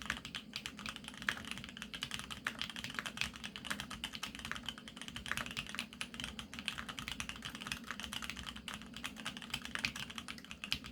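Fast, continuous typing on a GEONWORKS F1-8X full-aluminium, gasket-mount custom mechanical keyboard with Krytox-lubed Polaris Gray switches and mStone keycaps: a dense, unbroken run of key clacks. A low steady hum sits underneath, and the sound is picked up by a phone microphone.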